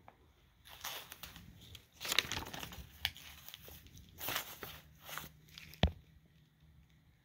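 Loose sheets of paper rustling and crinkling in several surges as they are moved aside, followed near the end by a single sharp click, the loudest sound.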